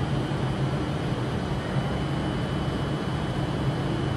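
Avanti West Coast passenger train standing at the platform, giving off a steady hum from its running equipment, with a faint high whine held on one pitch.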